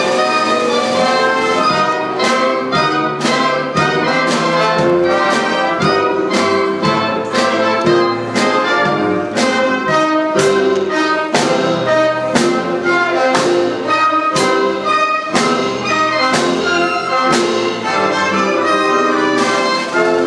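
Theatre pit orchestra playing, with brass to the fore; a steady beat of about two strokes a second sets in about two seconds in.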